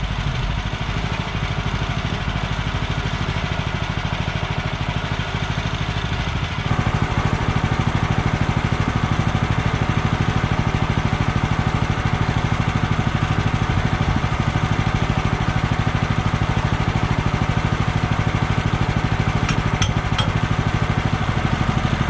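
Woodland Mills portable band sawmill's small gasoline engine running steadily; about a third of the way in it steps up to a louder, higher running and holds there.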